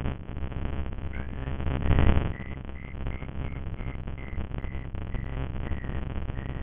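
Heavily distorted, rumbling audio from a broken microphone, cut off above the middle of the treble. It swells to a louder surge about two seconds in, and a faint high tone follows in short pulses about three times a second.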